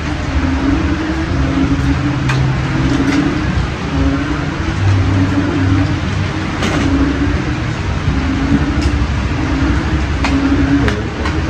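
A steady, loud mechanical rumble with a low hum that wavers and pulses every half-second or so, with a few sharp clinks of spoons on plates at a shared meal.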